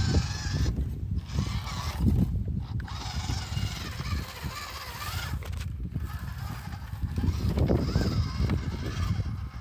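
Electric motor and gears of a small WPL radio-controlled Toyota Hilux crawler whining as it crawls over rocks and grass, cutting out briefly three times as the throttle is let off, over a steady low rumble.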